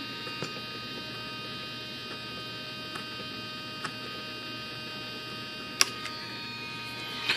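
A steady electrical hum made of several high tones, with a few light clicks from small parts of the servo linkage being handled and one sharper click about six seconds in.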